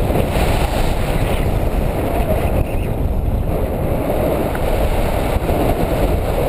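Wind rushing over the GoPro's microphone in flight under a tandem paraglider: a loud, steady, low rushing noise.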